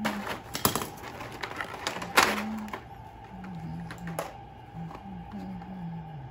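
Small plastic toy pieces clicking and clattering in a plastic compartment tray as they are picked up and put down, with one sharp clack a little after two seconds in.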